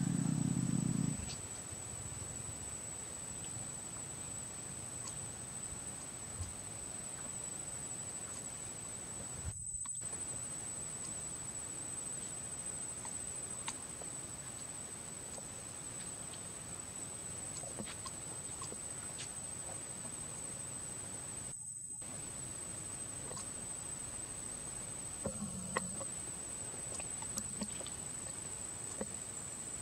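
A steady, high-pitched insect buzz, from cicadas or crickets, with scattered faint ticks and rustles on leaf litter. A brief low rumble comes in the first second. The sound cuts out for a moment twice, at edits.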